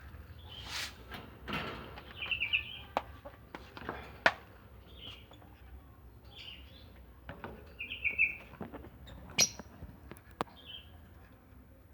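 Lovebirds chirping in short, repeated calls, among sharp clicks and knocks.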